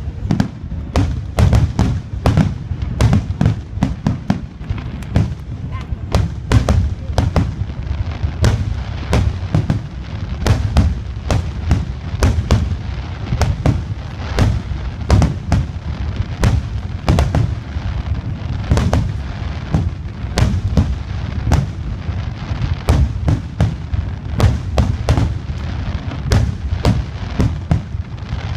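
Aerial fireworks shells bursting in a rapid, unbroken barrage: several sharp bangs a second over a continuous low rumble.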